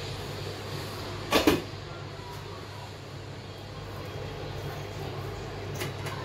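A short, sharp double clatter of cookware about a second and a half in, over a steady low hum. Then a wooden spatula stirs the thick rice dumplings in the pan.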